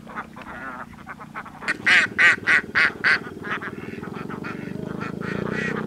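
A flock of Alabio ducks quacking: many short calls, with a run of about five loud quacks about two seconds in.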